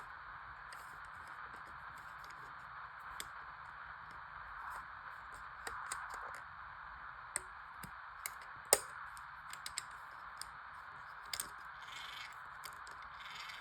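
Irregular light clicks and taps over a steady hiss, about a dozen in all, the loudest a sharp click about nine seconds in.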